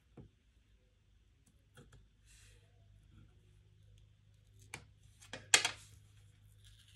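Faint handling of sticker paper with scattered small clicks and a brief rustle, then a sharper click with a short rattle about five and a half seconds in as a small metal craft tool is set down on the desk.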